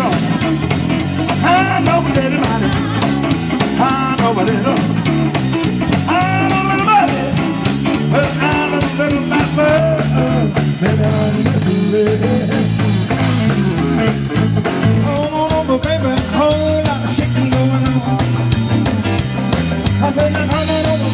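Live band playing: drum kit, electric bass, keyboard and saxophone, with a melody line over a steady bass.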